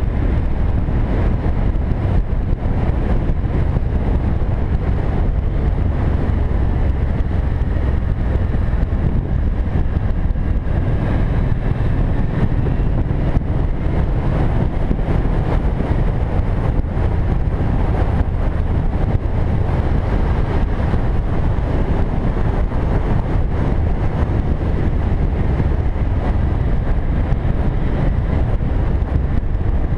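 Cruiser motorcycle's engine running steadily at road speed, heard from a camera mounted on the moving bike, with wind rushing over the microphone.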